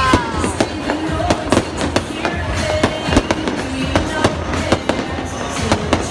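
Fireworks display going off: a rapid run of sharp bangs and crackles, several a second, over a low rumble, with music playing alongside.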